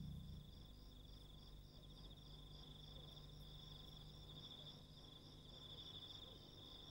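Faint crickets chirping: a steady high trill with a second chirp pulsing about five times a second.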